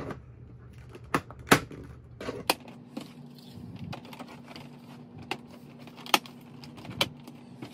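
Hard plastic toy-arena pieces being handled and clipped together: scattered sharp clicks and light knocks at irregular intervals, a few of them louder.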